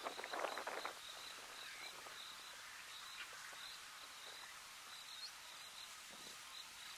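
Bush ambience: a steady run of evenly spaced high chirps from an insect, about three a second, with a brief rustle in the grass during the first second.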